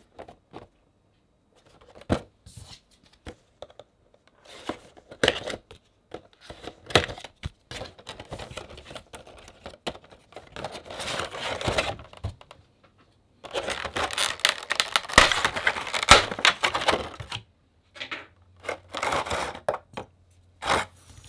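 A cardboard Funko Pop box and its clear plastic tray being opened and handled: sharp clicks and taps from flaps and plastic, with stretches of rustling and scraping, the longest about halfway through and another near the end.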